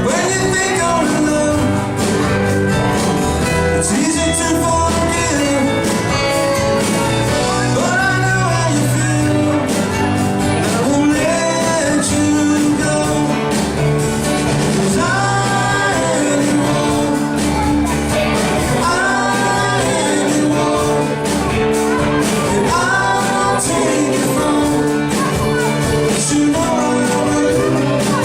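Live rock band playing with a singer over guitar, bass and drums, the sound filling a large hall.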